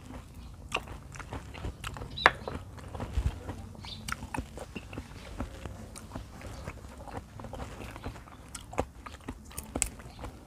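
Close-miked wet chewing of raw beef liver: soft smacks and sharp mouth clicks, with a sip from a bowl of spicy dipping sauce at the start. One sharper smack comes about two seconds in.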